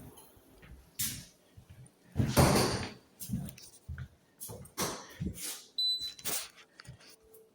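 Objects being handled: a series of knocks and clatters, the loudest a rough, noisy rustle or scrape lasting about a second, two seconds in. A short high beep sounds about six seconds in.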